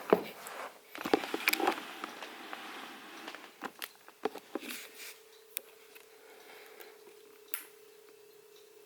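Crane Drop ultrasonic cool-mist humidifier being handled and switched on: a few clicks and knocks, then about halfway through a faint, steady hum starts as the humidifier begins running.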